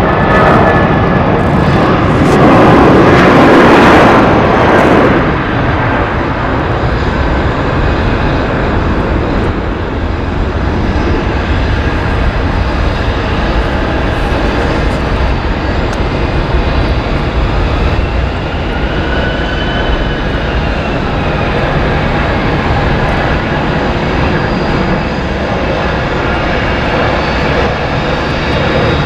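Airbus A320's twin IAE V2500 turbofans at takeoff thrust: a loud jet roar, loudest in the first few seconds as the airliner rolls past, then a steady roar as it lifts off and climbs away, with a faint engine whine in the middle.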